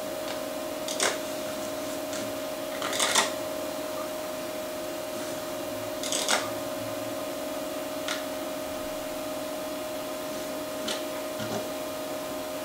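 Mouse clicks and double-clicks on a Macintosh Plus as folders are opened, with short hard-drive chatter among them. A steady hum from the running computer sits under them.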